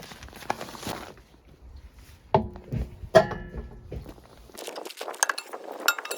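Scattered knocks and clicks of objects being handled, with one ringing metallic clink about three seconds in; after that only light, high-pitched clicking remains.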